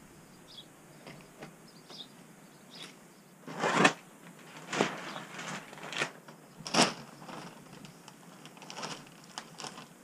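Hemp wool insulation batts and their plastic bale wrap rustling as they are handled and pulled from the bale. The rustles come in short bursts, the loudest just before four seconds in and near seven seconds in.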